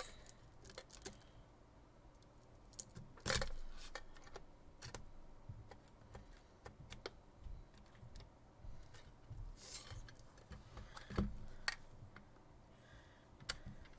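Hands working at the plastic wrapping on a collectible card tin: scattered light clicks and taps with a few brief rustles, the loudest about three seconds in and again near the end.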